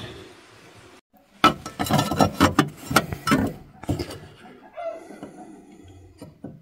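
A steel patch plate knocking and scraping against a rusty steel car frame as it is held and fitted into place: a dense run of clattering knocks lasting about two and a half seconds, then a few scattered light clicks.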